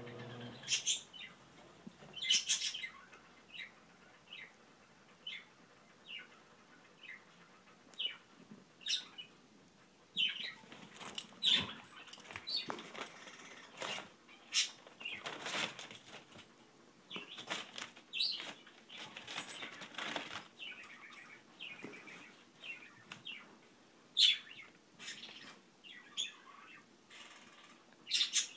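A dog sniffing and snuffling at a guinea pig, nose pressed close: many short, quick sniffs, singly and in rapid runs, busiest in the middle.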